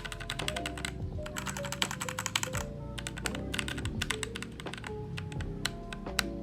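Mechanical keyboard fitted with Gazzew Boba U4T and Durock T1 tactile switches, many keys mashed rapidly in stretches of dense clacking with a short pause partway through. Background music plays under it.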